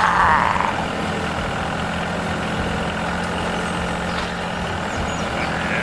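Truck-like diesel engine running steadily at idle, an even low rumble with no revving.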